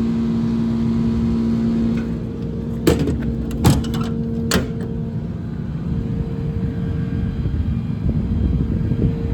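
Ford F550's 6.7-litre diesel engine running at a steady idle, its hum shifting in tone about two seconds in. Three sharp knocks, about a second apart, come near the middle.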